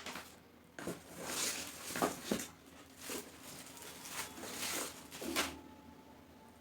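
Paper and packaging rustling in several irregular bursts as a parcel's contents are handled.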